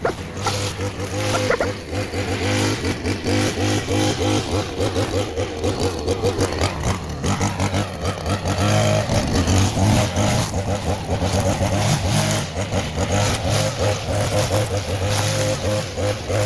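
String trimmer motor running and cutting, its speed rising and falling.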